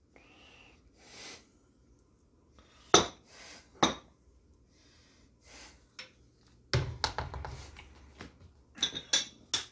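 A ladle knocking and scraping against a cooking pot and a bowl as chili is served, in scattered clinks and knocks. The sharpest come about three and four seconds in, and a denser run of scraping comes around seven seconds.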